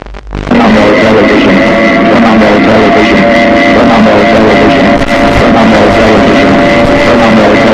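Loud, heavily distorted, guitar-like music that cuts in abruptly about half a second in, with a steady high tone held over a dense noisy wall of sound.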